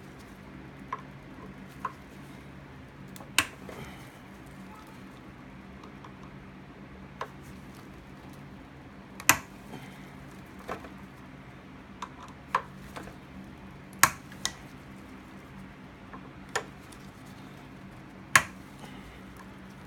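Sharp metal clicks and clinks of a screwdriver and small parts against the 2001 Suzuki Bandit 1200S's four-carburetor bank during disassembly, about a dozen at irregular intervals, four of them much louder than the rest. A faint low hum runs underneath.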